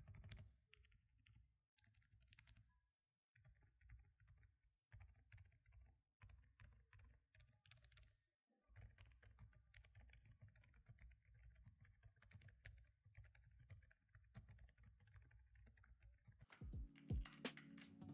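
Typing on a Xinmeng M87 Pro mechanical keyboard fitted with Silent Peach v2 silent switches: a faint, soft patter of dampened keystrokes, with brief pauses twice. Music comes in near the end.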